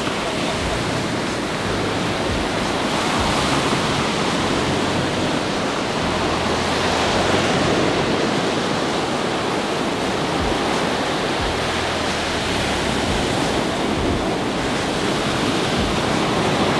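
Shallow ocean surf washing up and over wet sand at the water's edge: a steady rushing wash of foam and water that swells and eases gently.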